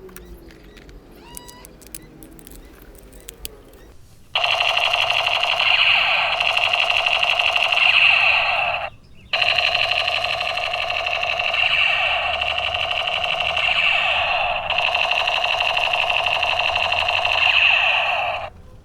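Battery-powered toy M16 rifle playing its electronic rapid-fire sound effect, a loud shrill rattling buzz. It runs for about four and a half seconds, breaks off briefly, then runs for about nine seconds more. Before it starts there are a few quiet plastic handling clicks.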